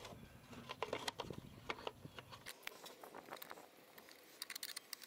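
Plastic cover of a telephone network interface box being closed and its customer-access screw turned with a screwdriver: a scatter of small clicks and taps, coming thicker near the end.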